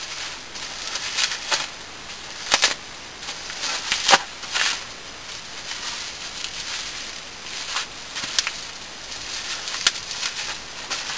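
Rustling and crinkling of plastic and paper packaging being handled, with irregular sharp crackles, the louder ones about two and a half, four and ten seconds in.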